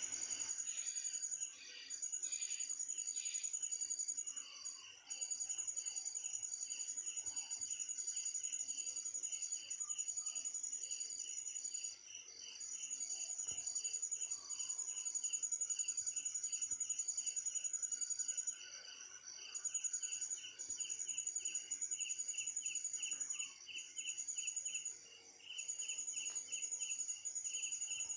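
Crickets trilling in several overlapping voices. A high continuous trill breaks off briefly every few seconds over lower, evenly pulsing chirps.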